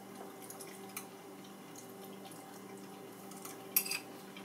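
Quiet eating at a table: a few faint utensil clicks, then a sharp clink of a fork against a glass serving bowl near the end, over a steady low hum.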